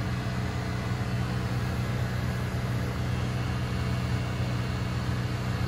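Corded electric hair clippers buzzing steadily with a low, even hum as they trim along a baby's hairline.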